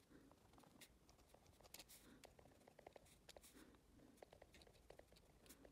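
Faint scratching of a pen writing on the paper of a spiral-bound notebook, in many short strokes.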